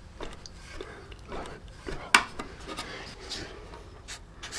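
Locking pliers working a 10d nail back and forth in a wooden block, metal scraping and creaking, with a sharp snap about two seconds in as the nail breaks off. Near the end, a marker scratching on the wood.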